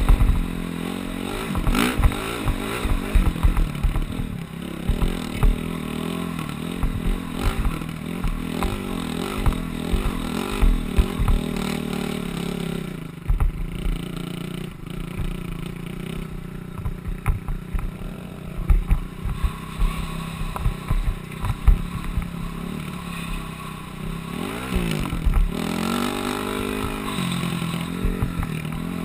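Dirt bike engine running under throttle while riding, its pitch rising and falling with the throttle and climbing in a rev near the end. Wind buffets the mounted camera's microphone in irregular low thumps throughout.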